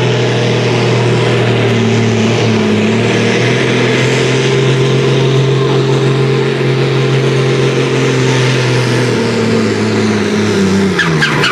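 Fendt pulling tractor's diesel engine running steadily at high revs under full load as it drags a weighted pulling sled; the engine speed falls near the end.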